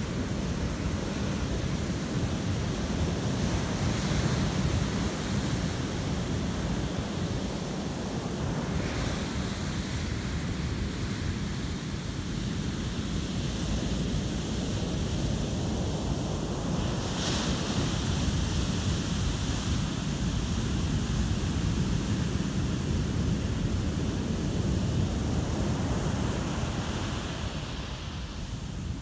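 Heavy ocean surf breaking and washing up a sandy beach: a continuous rushing of water that swells and eases as sets come in.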